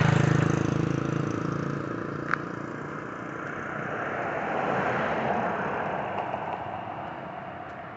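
A car passes close by. Its engine hum and tyre noise are loudest at first and fade over a couple of seconds, followed by a second swell of rushing road noise that rises and falls.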